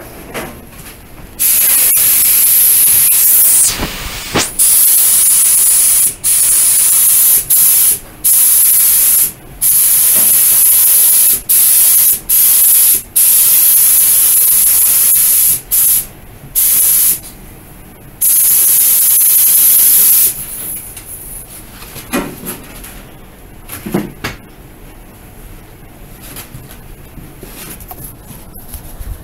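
Gravity-feed paint spray gun hissing in a string of passes, each cut off short as the trigger is let go, laying a light first coat of base-coat paint on a plastic bumper. The spraying stops about twenty seconds in, and a couple of soft thumps follow.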